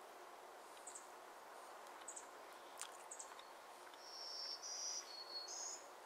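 Quiet woodland background with a few short, high chirps. About four seconds in comes a string of high, thin, held notes that step up and down in pitch, typical of a small songbird singing.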